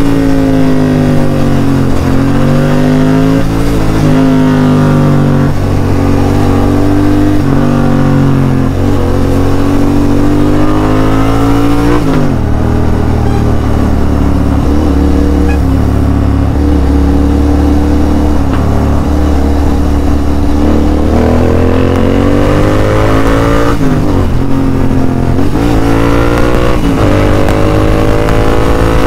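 A Royal Enfield Interceptor 650's parallel-twin engine sounds through a Red Rooster full-system aftermarket exhaust while riding. The note drops sharply about twelve seconds in as the bike slows, then runs steady at lower revs. In the last third it climbs again through several upshifts as the bike accelerates.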